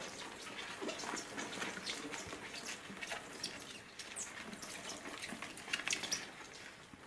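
Giant burrowing cockroaches scrabbling in a plastic tub as a hand handles them: faint, irregular scratches and clicks of their spiny legs on the plastic, with a few sharper scratches about four and six seconds in.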